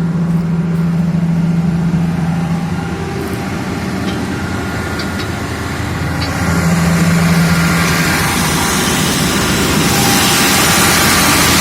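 Diesel engine of an excavator running steadily, with a low hum that fades out and comes back. It runs louder and harsher from about six seconds in, and again near the end.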